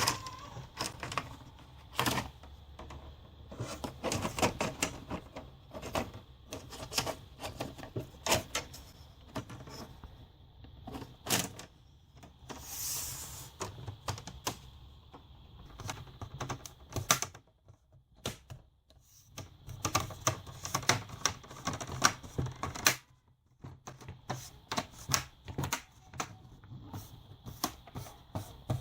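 Irregular small clicks and taps of hands working on a laptop's screen assembly: tiny screws, a screwdriver and plastic parts being handled and fitted. A short scraping hiss comes about halfway through.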